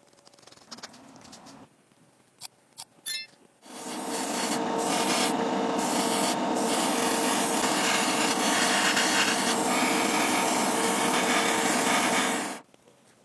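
A small electric sanding tool running steadily for about nine seconds, with a constant motor whine under a rasping abrasive noise as it works a surface; a few light clicks come before it starts.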